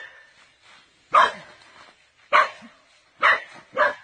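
A dog barking, four short sharp barks roughly a second apart, the last two closer together.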